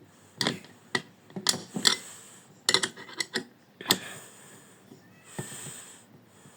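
Irregular sharp clicks and knocks from pliers and a bolt being turned to press the steel bushing out of a Braun blender's drive coupling, in quick clusters for about four seconds. After that comes a softer hiss.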